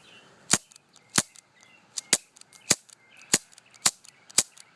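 CO2-powered air gun fired rapidly, about eight sharp pops roughly half a second apart: the gun being emptied as its CO2 cartridge runs out.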